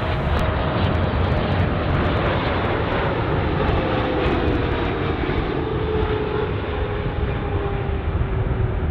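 Jet airliner's engines running as the aircraft comes in to land past the listener, a loud steady rumble with an engine whine that slides slowly down in pitch as it goes by.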